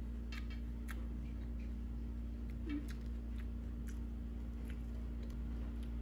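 Sparse, faint clicks and light scrapes of a metal butter knife working in a jar of chunky peanut butter, over a steady low hum.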